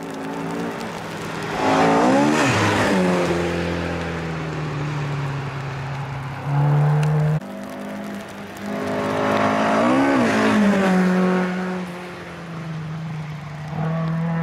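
Two rally cars passing at speed on a wet gravel stage, one after the other. Each engine note rises as the car approaches and falls away as it goes by, with tyre and gravel noise. Short snatches of steady engine sound cut in and out abruptly between the passes.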